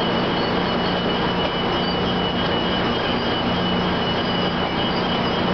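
GO Transit bilevel commuter train, pushed by an EMD F59PH locomotive, rolling steadily past at close range: a steady rumble of wheels and cars with a low hum and a thin high whine running through it.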